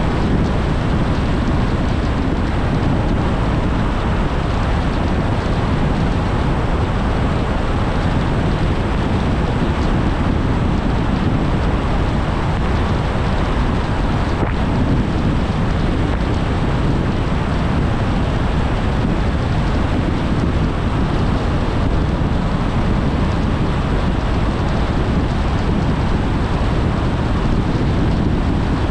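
Steady road and wind noise of a car driving along at an even speed, with no changes in pace or gear.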